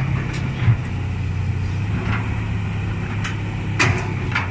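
Heavy diesel engine running steadily at an even pitch, with a few short knocks over it.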